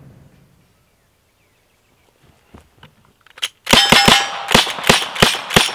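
Lever-action rifle fired in a fast string of shots, each followed by the metallic ring of steel targets being hit; a few faint clicks of handling come first.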